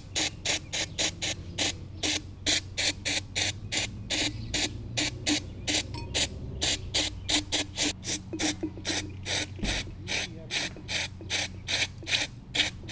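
Aerosol can of carburetor and choke cleaner sprayed into a small-engine carburetor in quick short hisses, about four a second, flushing varnish from old gasoline out of its passages.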